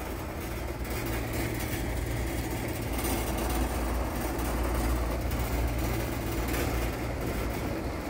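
Steady low machinery hum and rumble with a faint rushing noise over it, growing slightly louder about three seconds in.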